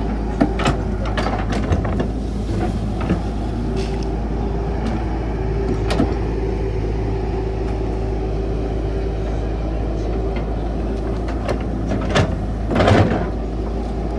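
Caterpillar 312 hydraulic excavator running steadily while digging, with scattered sharp clanks and knocks from the machine and a louder rush of noise about a second before the end.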